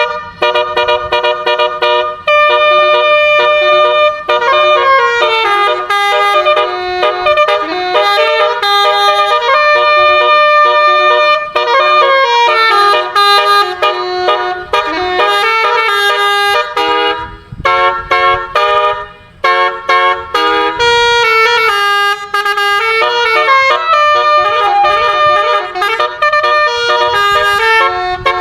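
A 12-note Basuri telolet bus horn playing a tune: several horn tones sound together and step from note to note in a continuous melody. About two-thirds of the way through there is a quick run of short, clipped notes.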